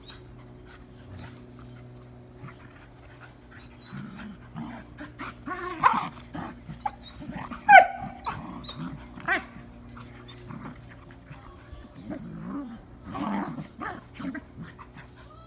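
Two Irish Terriers play-fighting, starting about four seconds in: growls, scuffling and short pitched yelps. The loudest is a yelp that drops in pitch near the middle, and another flurry comes near the end.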